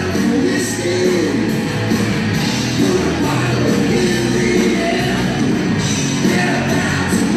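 A rock band playing live: distorted electric guitars, drums with crashing cymbals, and a lead vocal singing held, bending notes.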